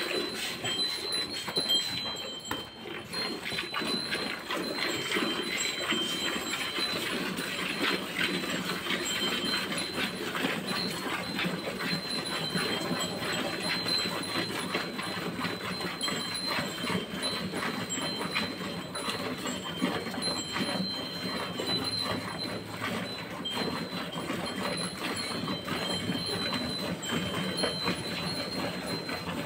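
Cow being hand-milked: jets of milk squirting from the teats into a steel bucket in a steady run of swishing squirts.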